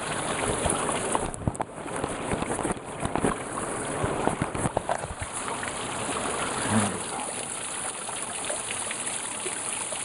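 Water of a partly frozen waterfall running and splashing, a steady rushing noise, with scattered short knocks in the first half.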